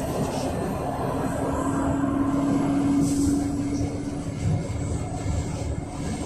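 Yutong ZK6116HG city bus under way with its Yuchai CNG engine running, heard inside the cabin: a steady low rumble with one held droning tone over it.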